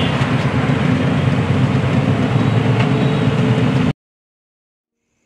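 Steady, loud rumble of city road traffic that cuts off abruptly to dead silence about four seconds in.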